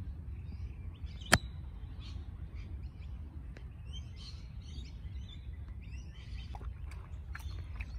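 Birds chirping with short scattered calls over a steady low rumble, and a single sharp click a little over a second in.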